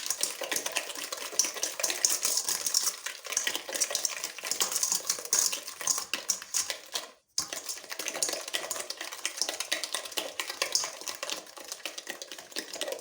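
Eggs and sugar being beaten by hand in a bowl, the utensil clicking and scraping rapidly against the sides, to dissolve the sugar into the eggs. The beating stops abruptly for a moment a little past halfway, then carries on.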